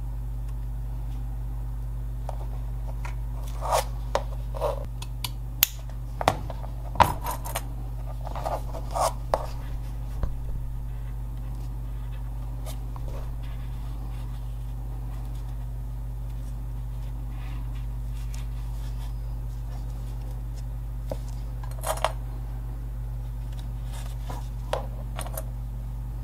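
Small hand tools and leather being handled on a workbench: a run of short clicks, taps and scrapes for several seconds, with a few more near the end, over a steady low hum.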